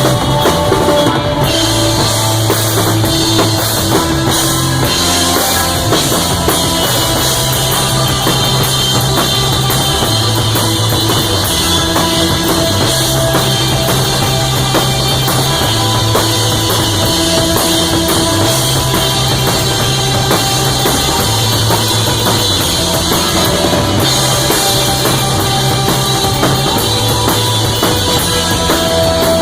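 Rock band playing live, loud and steady: a drum kit beat under a low bass line of long held notes that change every second or two, with guitar above.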